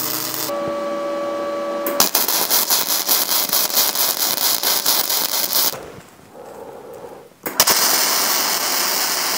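Wire-feed MIG welding arc laying test beads of flux-core wire. A fast crackle of regular pops starts about two seconds in. It drops away briefly around six seconds, then comes back as a loud, steadier hiss.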